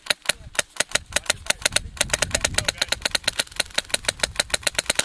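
Airsoft rifle firing a long, continuous full-auto string of sharp cracks, about ten shots a second.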